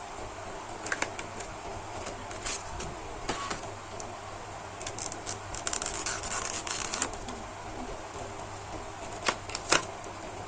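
Small plastic clicks and rustling as a laptop SSD is taken out of its packaging, with a crinkling stretch in the middle and a sharper click near the end.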